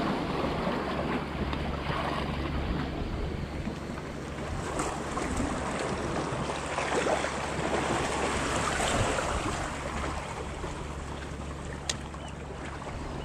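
Steady wind noise on the microphone over sea water washing against the breakwall rocks, with a single sharp click near the end.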